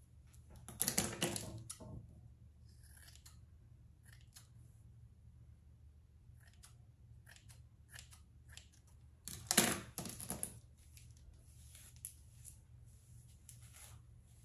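A comb dragging through thick, dry natural hair, with scratchy rustling: two louder bursts about a second in and near the ten-second mark, and scattered small ticks of comb and hair handling in between, over a faint steady hum.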